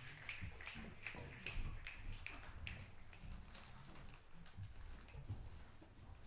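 Scattered finger snaps from an audience, a few to the second and thinning out over the seconds, the spoken-word audience's way of showing approval; a steady low hum runs underneath.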